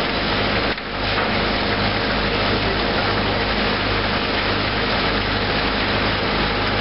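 An engine running steadily with a low, even hum, dropping out briefly just under a second in.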